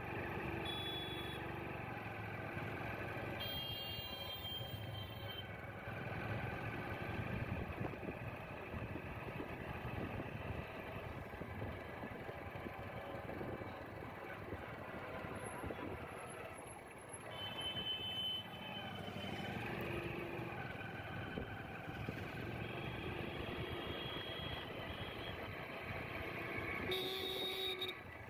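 Street traffic heard from a moving two-wheeler: a steady low rumble of wind and road noise, with short high beeping vehicle horns sounding several times.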